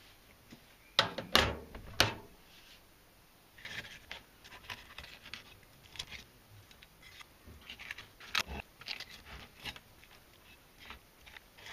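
A few sharp knocks about a second in, then a knife slicing along the backbone of a young yellowtail (inada) on a cutting board, making a run of small crackling scrapes as the blade rides over the bones.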